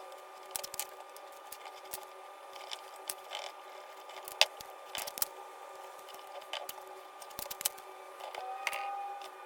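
Small clicks and taps from hands marking a wooden box's corners and handling blue painter's tape, with a short drawn-out rasp near the end like tape pulled off the roll, over a steady low hum.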